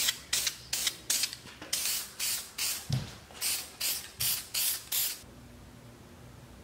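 Aerosol spray paint can, primer and then red paint, sprayed in about a dozen short hissing bursts that stop about five seconds in.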